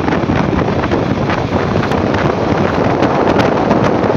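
Wind buffeting a handheld phone's microphone on a moving vehicle: a loud, steady rushing noise with the vehicle's running sound underneath and a few light knocks.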